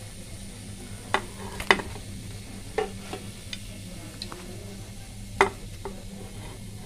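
Hot oil sizzling faintly in a nonstick frying pan as a browned keema patty is lifted out on a spatula. About five sharp taps of the spatula against the pan are spread through it.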